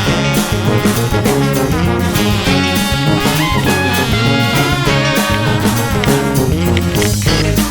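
Background music: an upbeat swing-style band with brass and drums playing at a steady beat.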